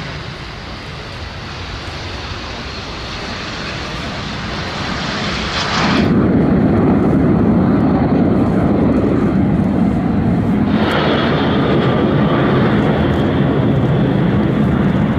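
Jet engine noise from a group of Aero L-39 Albatros jet trainers: a hissing whine that grows louder over the first six seconds as they take off, then changes suddenly to a louder, deeper rumble as the formation flies over, with the hiss coming back about eleven seconds in.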